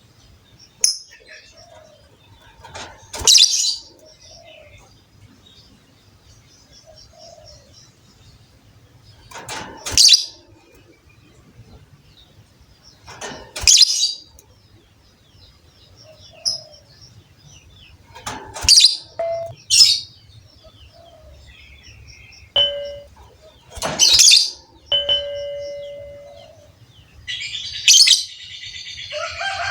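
Lovebirds calling: loud, shrill single calls every few seconds with soft twittering between, and a dense run of rapid chattering near the end. A couple of short, steady whistled tones sound about three-quarters of the way through.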